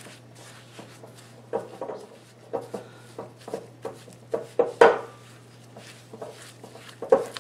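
A spatula works butter and sugar together against the sides of a glass mixing bowl, making irregular scraping, squishing strokes about twice a second. This is the sound of creaming butter and sugar by hand. The loudest stroke comes about five seconds in.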